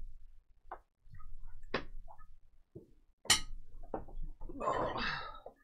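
Handling noise: a few sharp clicks and taps, the loudest a little over three seconds in, then a short rustle near the end.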